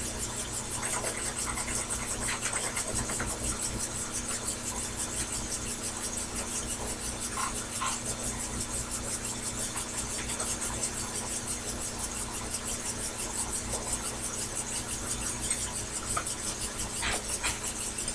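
Sherline mini lathe running steadily, its motor giving a constant hum with a fast even pulsing, and a few faint ticks.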